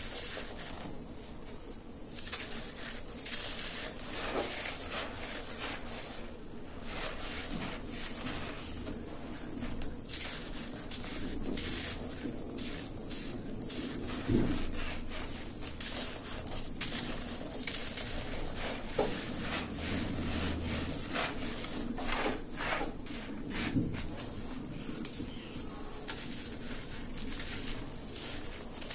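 Dry clumps of red dirt being crushed and crumbled in bare hands, with irregular gritty crackling, soil and grit pattering down and hands scraping through loose dirt. One louder crunch comes about halfway through.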